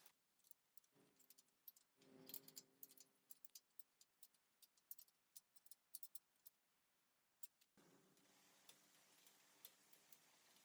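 Near silence with scattered faint ticks and clicks, and a faint steady hum that comes in about two seconds in and again near the end.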